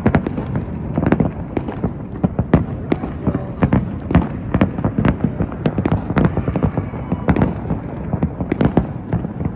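Aerial fireworks exploding in rapid, irregular succession, several sharp bangs a second over a continuous low rumble of booms.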